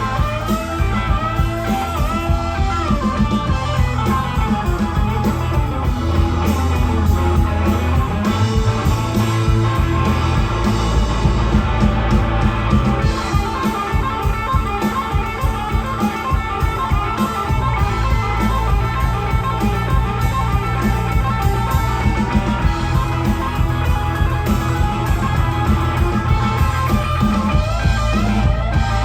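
Instrumental rock music from a band: a guitar plays a lead with bent, wavering notes over bass and drums.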